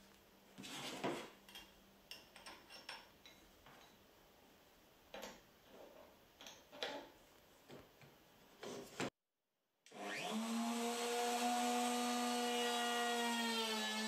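Clicks and knocks of metal router parts and wrenches being handled on a wooden bench, then a Bosch plunge router's motor spinning up and running with a steady whine, dipping slightly in pitch near the end as it cuts into the wood.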